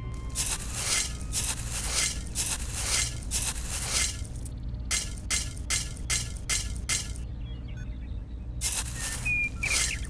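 Tiny metal hand trowel scraping and scooping dry, crumbly soil in repeated short strokes, about two a second, pausing briefly about seven seconds in before a few more strokes near the end. A bird chirps once near the end.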